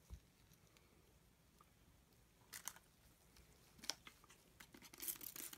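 Mostly quiet, with faint handling noises: a soft thump right at the start, then scattered small clicks and crackles that get busier near the end.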